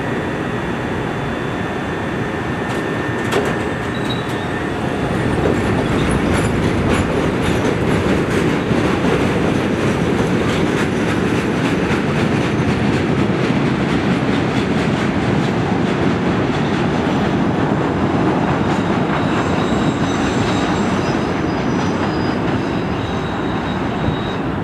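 CTA 'L' train of Budd 2600-series and Morrison-Knudsen 3200-series rapid transit cars running on elevated track, a steady rumble with wheels clicking over the rail joints, growing louder about five seconds in. A faint high wheel squeal comes in near the end.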